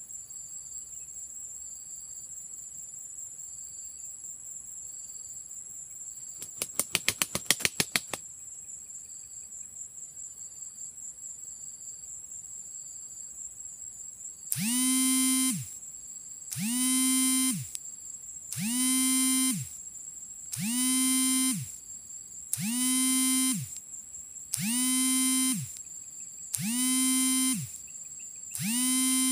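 Insects keep up a steady high buzz with a soft chirp repeating about once a second. Near the middle, a loud pitched call starts repeating about every two seconds, each call held a little over a second.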